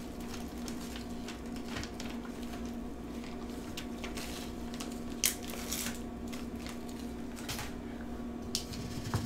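Plastic zip-top bag crinkling as crushed hot Cheeto crumbs are shaken and squeezed out of it into a small glass bowl: light rustles with a few sharper ticks, over a faint steady hum.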